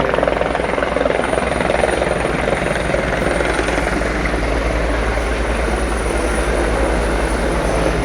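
Helicopter landing close by: its rotor blades beat rapidly and steadily, loud, with a thin high whine held above.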